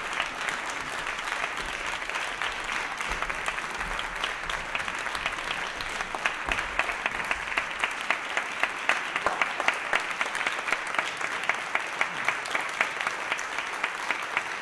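Theatre audience applauding steadily. From about six seconds in, sharp single claps stand out at an even beat of roughly two to three a second.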